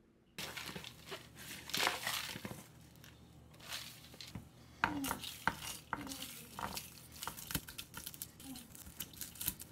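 Kitchen knife chopping dried red chili peppers on a plastic cutting board: irregular sharp taps of the blade on the board as the pods are cut up.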